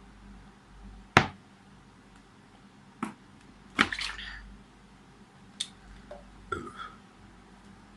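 Five short, sharp clicks spread across several seconds; the loudest comes a little over a second in, and two of them have a brief rattling tail.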